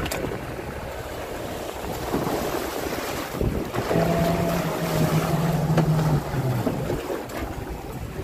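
Waves washing up a concrete boat ramp and wind buffeting the microphone as a boat on its trailer is backed into the sea. About four seconds in a steady low hum joins, stepping down a little in pitch before it stops about two and a half seconds later.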